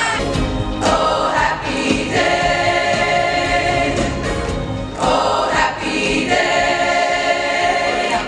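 A choir singing a gospel-style song in long held chords, phrase after phrase, with short breaks between phrases about one, two and five seconds in.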